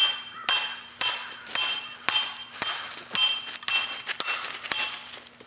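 A broken axe head used as a splitting wedge being hammered into a log, about ten sharp metal-on-metal strikes at roughly two a second, each ringing briefly. The log is starting to split as the wedge is worked in.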